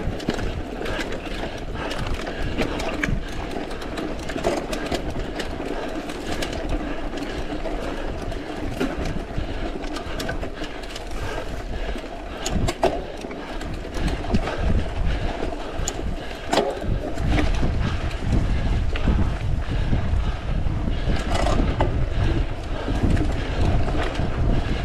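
A mountain bike ridden over a forest trail: steady tyre noise, with the bike clicking and rattling over bumps. A low rumble grows stronger about two-thirds through.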